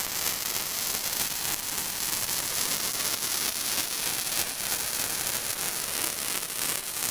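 Wire-feed welder arc crackling steadily as a weld bead is run on a steel gate hinge joint.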